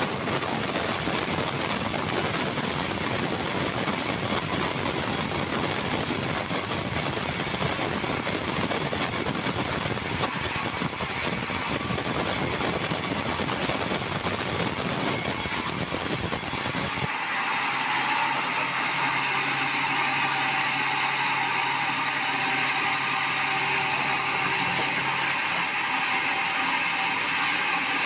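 Band sawmill blade running and cutting lengthwise through a red meranti log, a loud, steady mechanical noise. About seventeen seconds in, the sound changes abruptly: the low rumble drops away and a higher, steadier whine is left.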